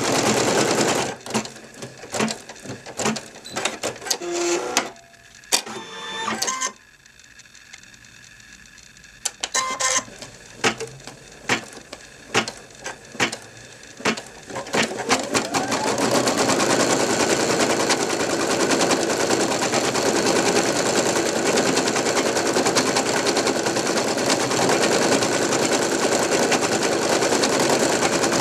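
Brother NV2600 computerized embroidery machine stitching fast. About a second in, the stitching stops and gives way to a string of separate sharp clicks and knocks with a short quiet stretch, and about halfway through it settles back into steady rapid stitching.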